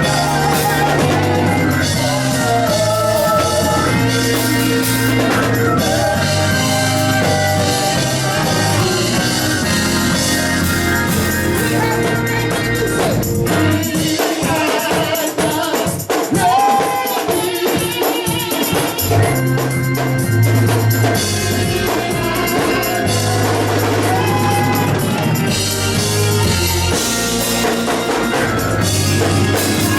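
Live gospel praise music: singing over a band with drum kit, deep bass notes and tambourine. A little under halfway through, the bass drops out for about five seconds, leaving singing and percussion, then the full band comes back in.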